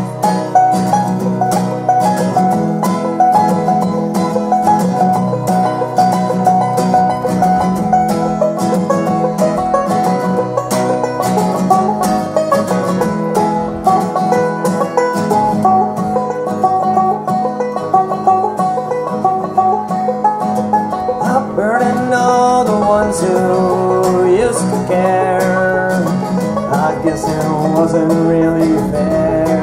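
Banjo and acoustic guitar playing a bluegrass tune, the banjo picking fast notes.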